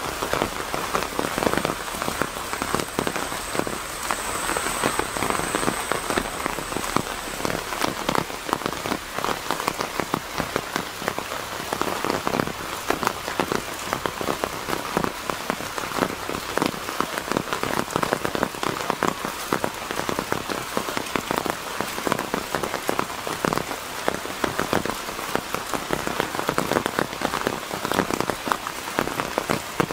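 Steady heavy rain, with a dense patter of individual drops striking close at hand, unbroken throughout.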